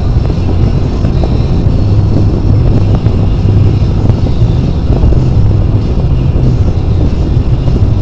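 Steady low drone of road and engine noise inside a car's cabin at highway speed, picked up by a windshield-mounted dashcam.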